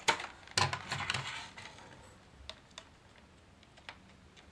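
Clear plastic packaging tray crinkling and clicking as it is handled, densest in the first second and a half. Then come a few separate sharp clicks as scissors are worked at the rubber bands holding the toy figure in the tray.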